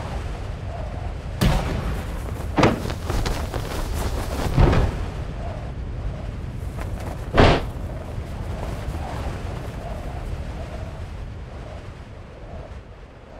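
Sound effects for a spacecraft's parachute descent: a steady low rumble of rushing wind, broken by four sharp bangs about one and a half, two and a half, four and a half and seven and a half seconds in, the later two the loudest.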